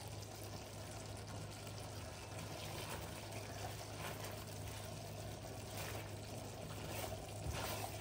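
Creamy chicken curry sauce being stirred with a silicone spatula in a nonstick frying pan: faint wet swishing, with a steady low hum underneath.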